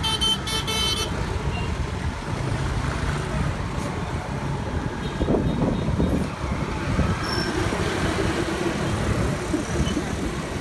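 Street traffic noise: motor vehicles running, with a motorcycle riding past at the start. A short pulsing high-pitched tone sounds in the first second, and distant voices are heard midway.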